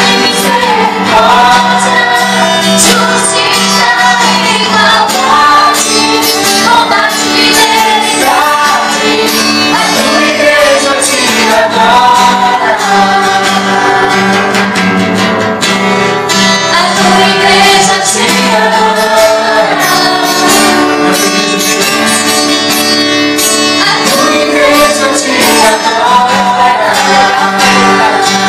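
Live gospel worship music: a woman sings the lead into a microphone, amplified through loudspeakers, over guitar and band accompaniment.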